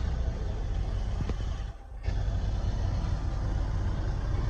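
Heavy diesel engine of a logging truck running steadily, with a brief drop in level a little under two seconds in.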